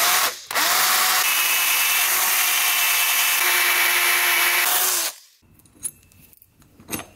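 Cordless drill boring a mounting-bolt hole into an aluminum heat-sink block, with a twist bit running steadily at a constant whine for about four and a half seconds, then stopping. A few faint clicks follow as the metal is handled.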